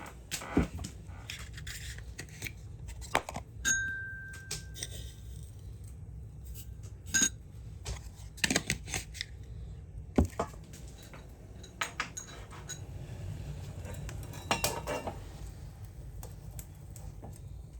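Kitchen dishes and utensils clinking and knocking in scattered taps during food preparation, with one ringing clink about four seconds in. A low steady hum runs underneath.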